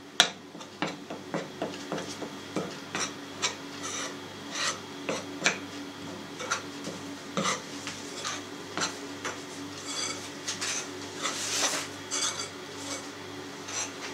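A fork scraping and tapping against a mixing bowl as flour is stirred into a yeast starter to begin the dough, in a steady run of short strokes about two to three a second.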